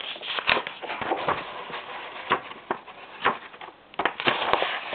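Paper pages of a ring binder rustling and crackling as they are handled and turned over, with several sharp crinkles standing out.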